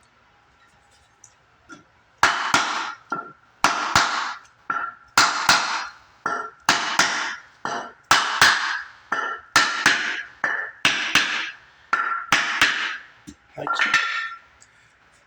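Hammer blows driving a bearing race into a steel wheel hub, a steady run of sharp strikes about one to two a second, each with a short metallic ring.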